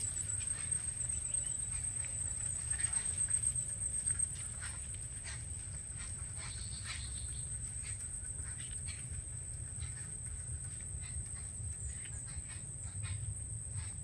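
Forest ambience: a steady high-pitched insect drone over a low rumble, with scattered light clicks and crackles, thicker in the first few seconds.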